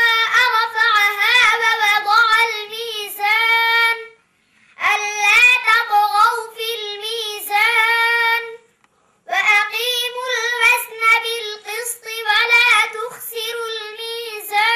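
A boy's unaccompanied voice chanting a melodic religious recitation with held, ornamented notes, in three long phrases with short breath pauses between them.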